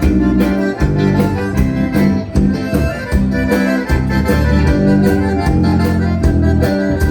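Gaucho band playing the instrumental opening of an old-style xote, led by accordion over a steady dance beat.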